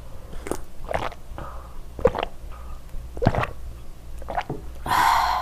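Drinking water from a plastic bottle: several separate swallowing gulps, with a louder breathy rush of noise near the end.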